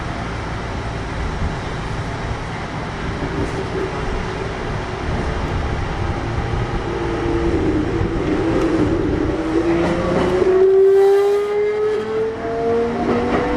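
Kintetsu 1021 series electric train running, with a steady rumble of wheels on rail. From about halfway, the Hitachi GTO VVVF inverter and traction motors whine upward in pitch as the train accelerates, loudest near the end.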